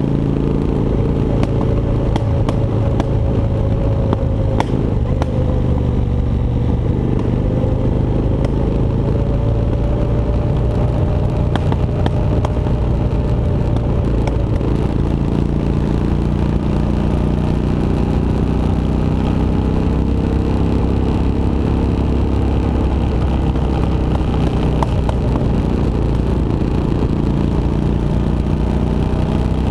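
Motorcycle engine running while riding along a road, its pitch rising and falling slowly with speed, over a steady low road rumble.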